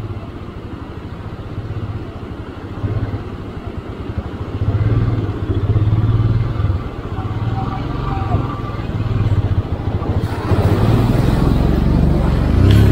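Motorcycle engine running at low revs and rising and falling under the throttle as the bike is ridden through a stream crossing. About ten seconds in, a louder rush of water joins.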